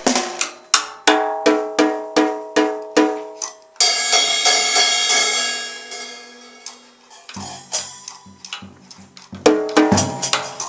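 A child playing a junior drum kit with sticks: a run of even drum hits, about three a second, then a cymbal crash about four seconds in that rings out and fades over a few seconds, then another cluster of drum hits near the end.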